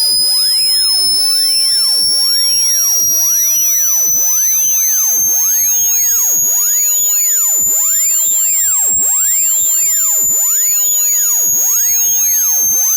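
High-pitched electronic tone from a phone speaker-cleaning sound file, meant to vibrate water out of the loudspeaker. It holds steady in loudness and slowly rises in pitch, then dips a little near the end.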